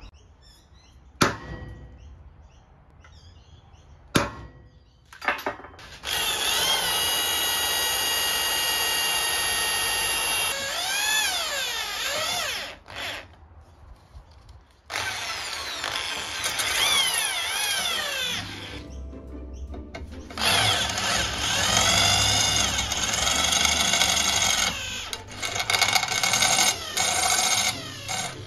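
Cordless drill boring out the spot welds on a motorcycle's metal catalytic converter casing. The motor whines in three long runs starting about six seconds in, its pitch dipping and rising as the bit bites into the steel. A few sharp knocks of handling come before the drilling starts.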